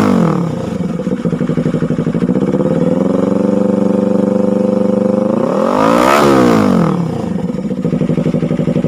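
Yamaha R3 parallel-twin engine through an SC Project exhaust with twisted elbow and resonator, settling back to idle from a rev in the first second. About three seconds in it is brought up to a higher rpm and held for a couple of seconds, then blipped sharply once near six seconds and drops back to a pulsing idle.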